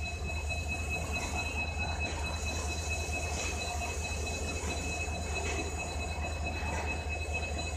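Indian Railways diesel locomotive standing and running at idle: a steady low rumble with a thin, high, unwavering whine over it.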